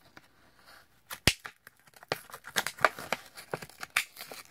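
Plastic blister pack on a Hot Wheels card being cracked open by hand: one sharp crack about a second in, then irregular crinkling and tearing of plastic and cardboard.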